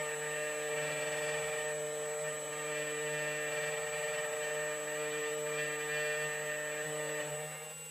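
An automatic key cutting machine runs steadily, its cutter spindle milling an HU100 laser-cut key blank with a steady motor whine and hiss. The sound dips briefly near the end.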